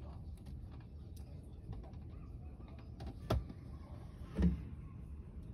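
Two sharp knocks, the louder one about four and a half seconds in, as the phone is moved and handled, over a steady low rumble.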